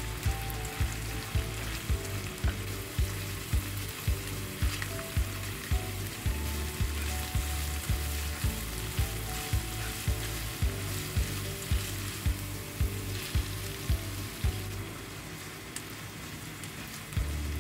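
Ground beef, then onion and diced tomato, frying and sizzling in a nonstick pan, stirred and scraped with a spatula. Background music with a steady beat of about two thumps a second plays over it and pauses briefly near the end.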